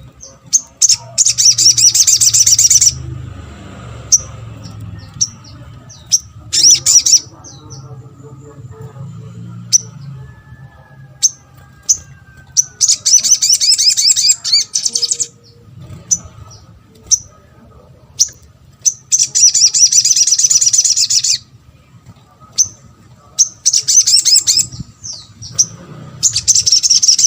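Sogon (sogok ontong), a spiderhunter, singing: several bursts of fast, high chirping trills about two seconds each, with single sharp chirps between them.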